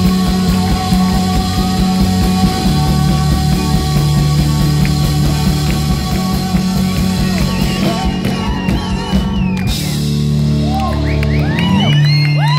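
Live band with acoustic guitar, drums and cello playing a rock song loudly. The drums stop a few seconds before the end and the band holds a final chord while the crowd starts whooping and cheering.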